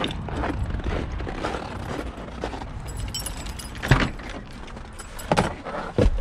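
Keys jangling and handling noise as a Volkswagen's driver's door is opened and someone climbs into the seat, with three sharp knocks in the second half.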